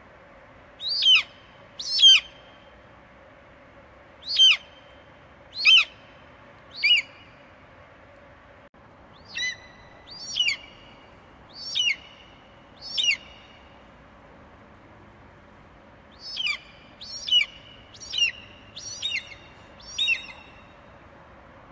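Juvenile raptor chick calling: short, shrill screeches that slide downward in pitch, each about a second apart. They come in bursts of two to five calls with short pauses between.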